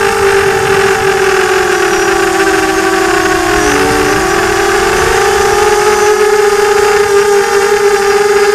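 FPV quadcopter's electric motors and propellers whining steadily, heard from the camera on board; around the middle the pitch dips and the motors briefly drift apart in pitch as the throttle eases, then settle back to one steady tone.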